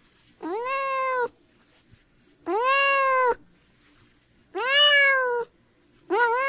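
Cat meowing over and over: drawn-out, high meows about two seconds apart, each rising and then falling slightly in pitch, the fourth starting near the end.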